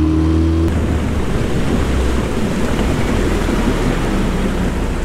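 Yamaha 9.9 hp outboard running at speed on a jon boat. Its steady engine tone is heard at first, then under a second in it is covered by a loud, even rush of wind on the microphone and water noise.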